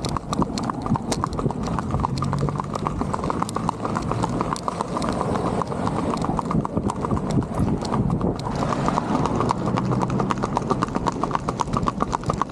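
A ridden horse's hooves striking asphalt in a quick, even clip-clop.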